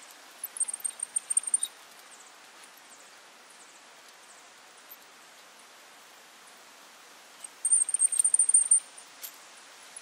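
A rebar tie-wire twister ("yo-yo") spinning loop ties tight around rebar crossings. There are two bursts of rapid, high, squeaky ticking, each about a second long: one shortly after the start and one about three-quarters of the way in. A sharp click follows the second, over a steady outdoor hiss.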